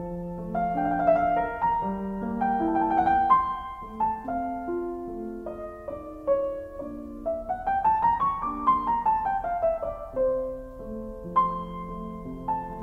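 Background solo piano music playing a gentle melody, with a run of notes climbing about halfway through and then stepping back down.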